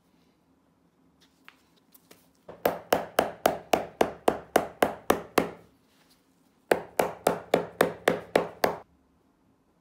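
Shoe hammer striking a new rubber half sole on a leather shoe sole, a few light taps and then two quick runs of about four blows a second, hammering the rubber down so it bonds to the sole.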